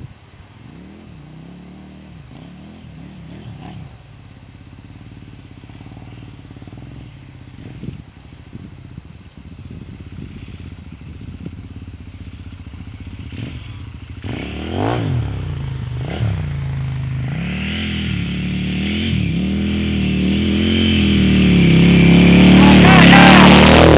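KTM 990's V-twin motorcycle engine, faint and distant at first, then revving up and down in repeated surges as the bike comes down a sand dune toward the microphone. It grows steadily louder and is loudest near the end as it passes close by.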